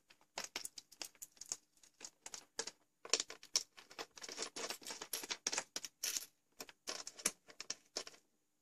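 Steel terminal bolts with washers being fitted and turned by hand into the brass terminals of a LiFePO4 battery. A quick run of small metallic clicks and scrapes, busiest in the second half, stops just before the end.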